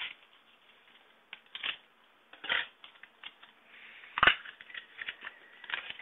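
Plastic packaging of a RAM stick being cut open and handled: scattered light clicks and rustles, with one sharper knock about four seconds in.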